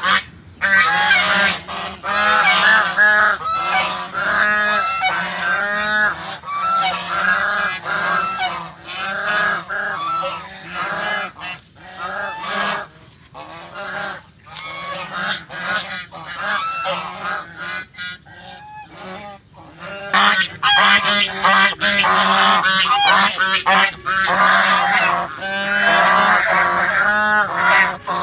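A flock of domestic geese honking, many short calls overlapping. The calling thins out in the middle and picks up again strongly near the end.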